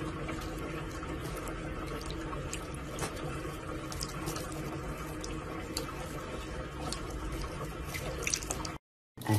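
Water running steadily from a faucet into a sink basin, with a few faint clicks, cutting off suddenly near the end.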